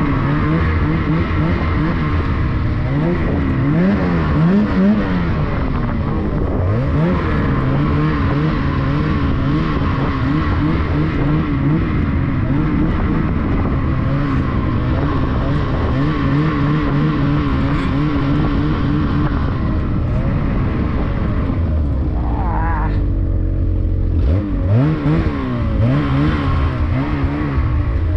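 Ski-Doo Summit X 165 Turbo snowmobile's two-stroke turbocharged engine running under constantly changing throttle, its pitch rising and falling as the sled works through deep snow. About 22 seconds in it drops to a low rumble, then revs back up.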